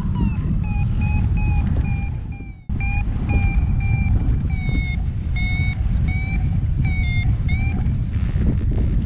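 Paragliding variometer beeping in short, quick, evenly spaced pitched beeps, about two to three a second, the tone it gives while the glider is climbing in lift. The beeps sound over a loud rush of wind on the microphone and stop near the end.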